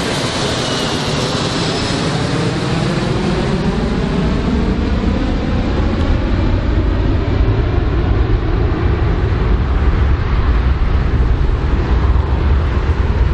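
Four-engined jet airliner climbing away under engine power: continuous jet noise with a high whine that falls in pitch over the first few seconds, and a deep rumble that grows stronger in the second half.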